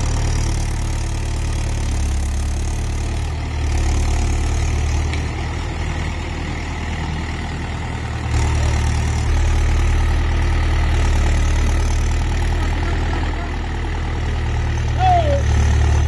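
Mahindra 475 DI tractor's diesel engine running as it hauls a trolley loaded with soil. The engine gets louder about four seconds in and again about eight seconds in.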